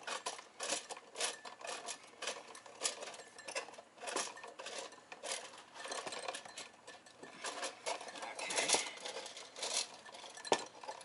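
A twist-type tension rod being twisted and pushed into place under a kitchen cabinet, its wire hooks rattling against it: quick irregular clicking and scraping of plastic and metal, busiest near the end, with one sharp knock just before the end.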